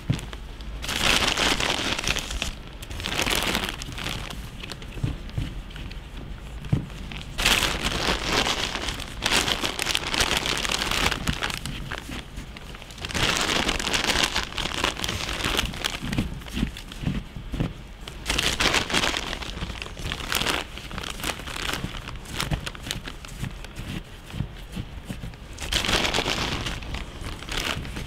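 Snow being scooped by hand from a plastic carrier bag and packed into a plastic fishbowl: the bag crinkles and the snow crunches, in short bursts every few seconds.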